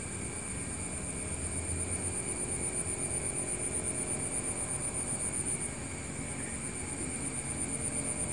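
Steady outdoor background: a high-pitched drone pulsing rapidly and evenly, over a low, even rumble.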